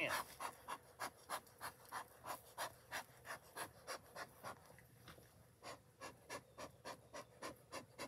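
Bellows bee smoker being pumped over and over, a steady run of breathy puffs about three a second, with a short lull about five seconds in.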